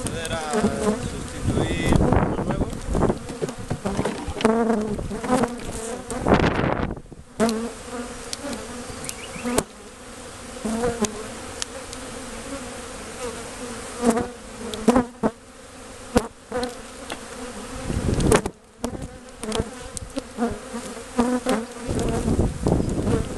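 Honeybees buzzing in a steady hum around an opened hive, disturbed as their frames are lifted out. Knocks and scrapes of wooden hive frames and boxes being handled come through at intervals, with a couple of louder rustles.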